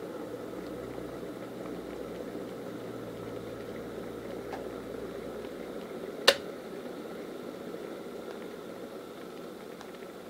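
T-fal Justine+ electric kettle rumbling at the boil, then its automatic switch turns off with one sharp click about six seconds in, the sign that the water has boiled; the bubbling slowly dies away after it.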